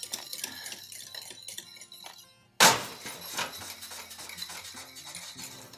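A wire whisk clinking and scraping against a stainless steel saucepan as thickening cornmeal polenta is stirred. A single loud clank of metal on the pot comes about two and a half seconds in.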